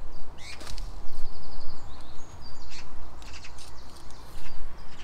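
Small birds chirping and calling in short, quick notes with a brief trill, over a steady low rumble.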